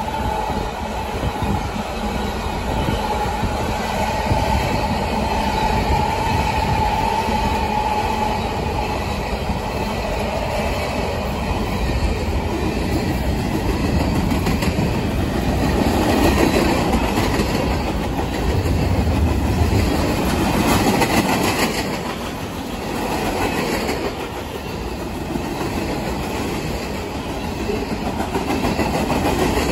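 Freight train cars rolling past close by: steady rumble and clickety-clack of steel wheels over the rail joints.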